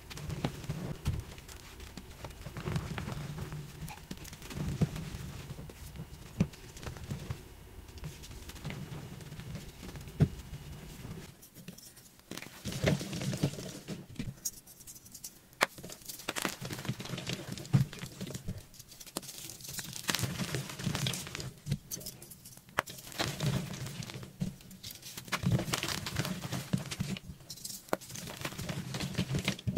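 Dried pasted gym chalk blocks being crushed and crumbled by hand: dense, irregular crunching and crackling.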